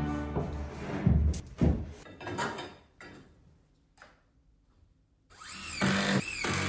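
Two sharp knocks about a second in, then near the end a cordless drill-driver running in a short burst, its motor speeding up and slowing down twice before cutting off.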